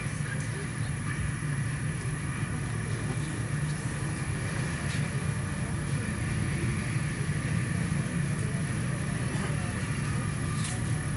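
Steady low mechanical hum, engine-like, with a faint hiss above it and a few faint clicks.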